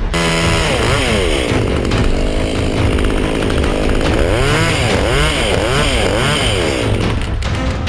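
Chainsaw running and being revved, its engine pitch rising and falling repeatedly.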